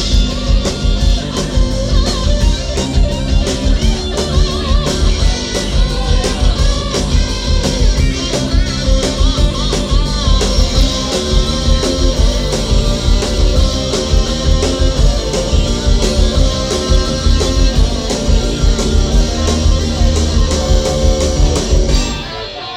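Rock band playing an instrumental break between sung verses: electric guitar and bass over a steady drum beat. Near the end the full band drops away, leaving quieter guitar.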